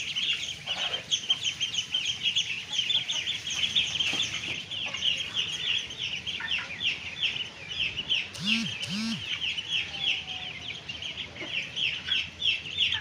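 A brood of ducklings peeping constantly: a dense chorus of short, high, downward-sliding peeps, several a second. Two short lower calls sound a little past the middle.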